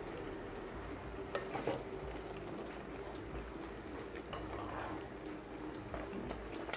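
A wooden spatula stirs thick cabbage-and-lentil kootu in a pot, with a few soft knocks against the pot, over a faint steady hum.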